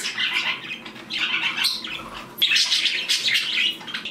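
Several budgerigars chattering together in a steady run of short chirps, warbles and squawks, easing off briefly about two seconds in.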